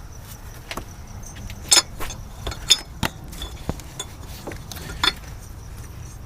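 Metal hand tools clinking and tapping against engine parts: about half a dozen short, sharp strikes scattered irregularly, with the loudest a little under two seconds in, near three seconds in and about five seconds in.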